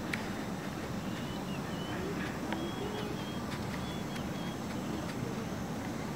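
Steady outdoor background noise with a few short, high bird chirps from about a second in until just past the middle.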